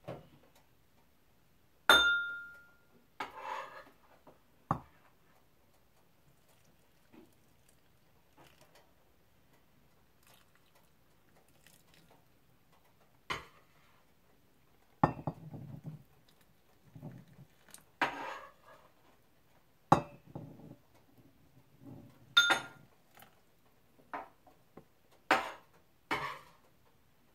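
Metal ladle clinking and knocking against a pot and glass canning jars as hot brine is ladled into the jars. The clinks and knocks are scattered, and the loudest is a ringing clink about two seconds in.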